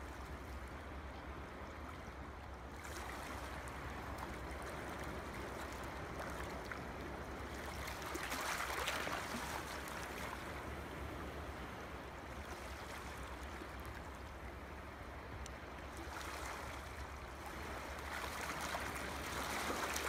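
Scissors cutting through kraft cardstock in long strokes, a soft rasping that swells now and then, over a steady hiss and a low hum.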